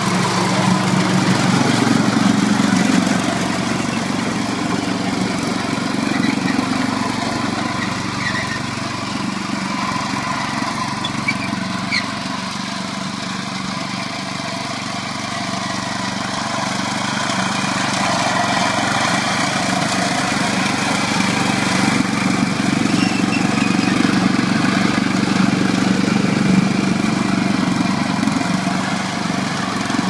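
Struck MagnaTrac mini crawler dozer's small gas engine running steadily as the machine is driven. The sound eases off in the middle and grows louder again toward the end.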